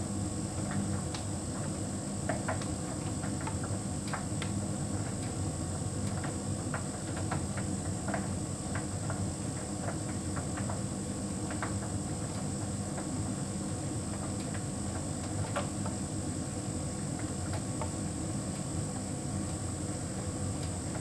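Hotpoint heat pump tumble dryer running: a steady hum of the compressor and turning drum, with scattered light clicks through most of it.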